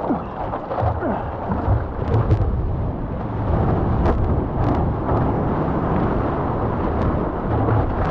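Steady rushing of a breaking wave and whitewater with a deep rumble, as a surfboard rides down the wave face.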